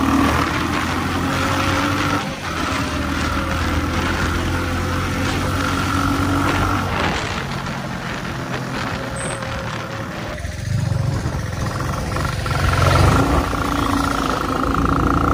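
Motorcycle engine running while being ridden along, with a steady engine note and road noise; the sound eases briefly about ten seconds in and then picks up again.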